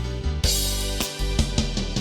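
Instrumental music for a children's song: plucked guitar over a steady drum-kit beat with bass drum, no singing.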